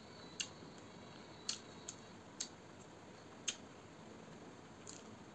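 Eating sounds: about six short, sharp clicks at irregular intervals, the small wet smacks and ticks of someone chewing and eating curry and rice by hand.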